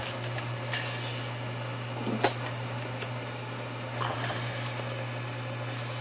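Whirlpool fridge-freezer compressor running with a steady low hum, just switched on by the temperature controller calling for cooling. A couple of faint clicks stand out, about a second and two seconds in.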